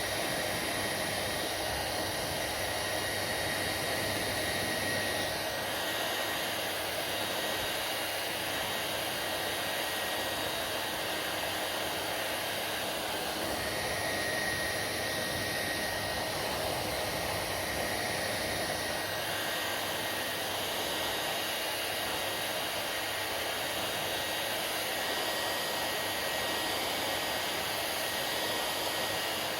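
Hair dryer running steadily: a continuous rush of blown air with a faint high motor whine over it.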